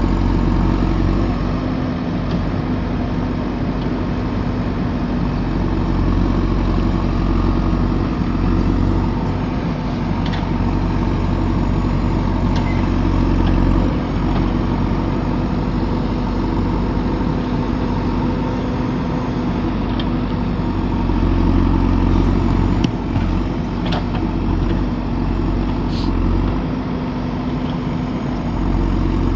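JCB backhoe loader's diesel engine running steadily, with a few short knocks now and then.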